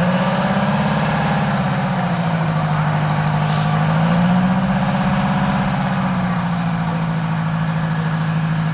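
Engine of a Chubb Pacesetter airport crash tender running as it drives slowly away across grass: a steady low note that wavers gently in pitch.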